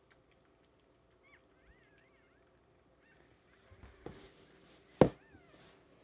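Newborn puppies crying with short, high-pitched, wavering squeaks, a few at a time. Rustling and a sharp knock about five seconds in as the phone is handled.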